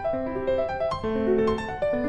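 Background piano music, a melody of notes changing several times a second.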